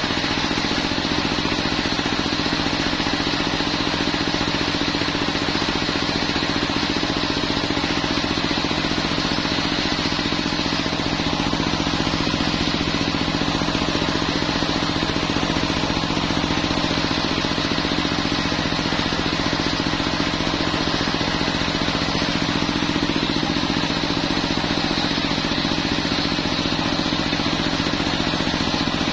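A stationary diesel engine runs at a steady speed, belt-driving a homemade circular sawmill blade that spins freely without cutting while a coconut log is positioned.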